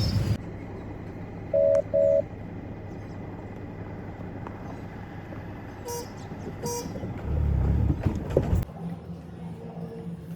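Two short, loud electronic beeps, then two shorter toots like a vehicle horn, over a steady low traffic hum. A louder low rumble comes near the end.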